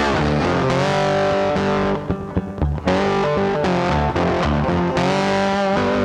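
Rock music with distorted electric guitar and bass over a steady beat, with a short quieter break about two seconds in.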